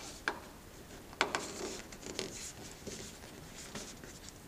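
Plastic wingtip adaptor being pressed and shifted by hand against the aircraft's wingtip: three sharp clicks in the first half with rubbing and scuffing between.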